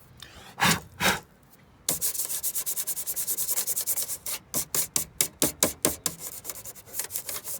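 Rubbing strokes, as of something being wiped or scrubbed by hand. Two come near the start, then a fast, even run of about eight a second, which slows to a few a second near the end.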